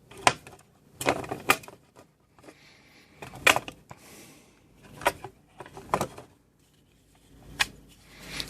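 Sharp plastic clicks and knocks, about seven spread over several seconds, from a cheap plastic motion-sensor LED light being handled at its battery compartment.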